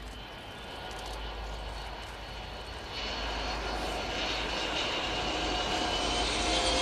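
Kawasaki P-1's four turbofan engines running with a high whine, growing steadily louder as the aircraft comes closer, with a step up about three seconds in.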